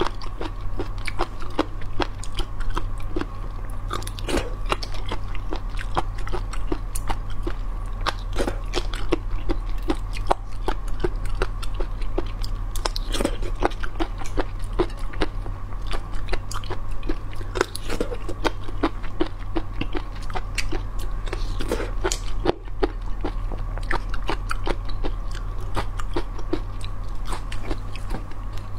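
Close-miked biting and chewing of pickled mud snails, with many irregular crisp crunches and wet clicks, over a steady electrical hum.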